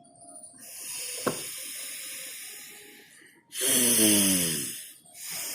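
Slow, audible nasal breathing of chandra bhedi pranayama, breathing through one nostril with the other held shut: a long, soft breath, then a louder, forceful breath about three and a half seconds in with a falling hum in it, and another breath starting near the end. A short click about a second in.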